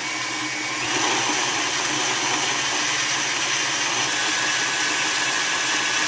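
Electric stand mixer running with a dough hook through a small, stiff batch of flour, sugar, butter and egg-yolk dough. About a second in it steps up to a higher speed and runs louder, with a high whine added.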